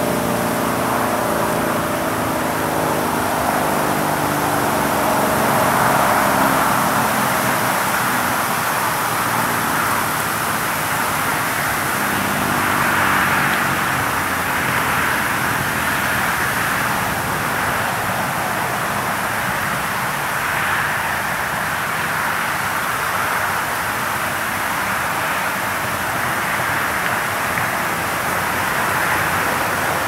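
Sentry 40V2T outdoor warning siren winding down: its chord of falling tones drops in pitch and fades over the first several seconds. After that only a steady rushing noise remains, swelling gently now and then.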